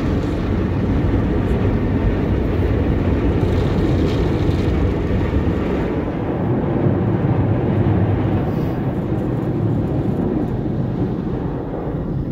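Automatic car wash spraying water and foam over a car and scrubbing it with its cloth brushes, heard from inside the car's cabin as a loud, steady, deep rushing that eases slightly near the end.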